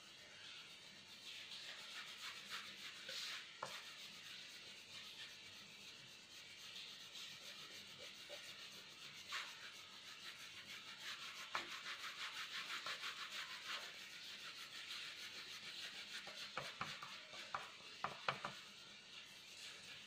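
Brown coloured pencil shading on paper in quick back-and-forth strokes, a steady faint scratchy rubbing, with a few light clicks near the end.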